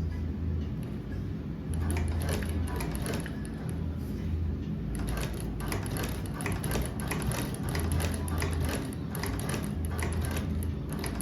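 Manual cobbler's sewing machine stitching thick leather, its mechanism clicking in a quick repeated rhythm that starts about two seconds in.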